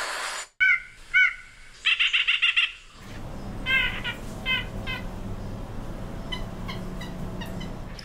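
White-breasted nuthatch calls: two single calls, then a quick run of about eight, then more scattered calls over a low steady background rumble from about 3 seconds in.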